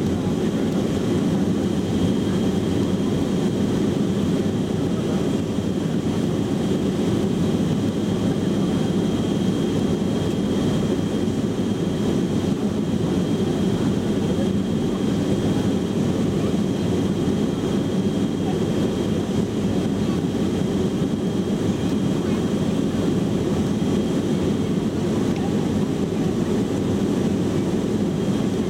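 Cabin noise at the rear of a Boeing 707-300 climbing out after takeoff: the steady, deep noise of its Pratt & Whitney JT3D turbofans and the airflow, with a thin high whine held throughout.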